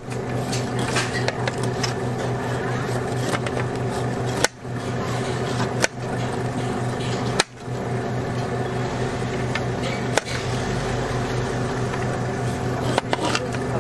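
A steady machine hum, with a few sharp clicks about four, six, seven and a half and ten seconds in, each followed by a brief dip in level.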